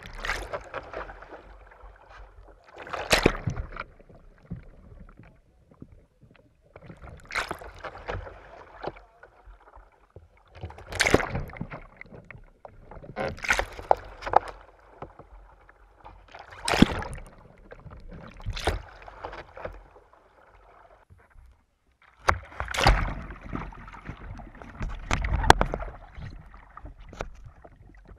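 Sea kayak repeatedly capsizing and rolling back upright: water splashing and churning in bursts every two to four seconds, heard from a deck-mounted camera that dips under the surface.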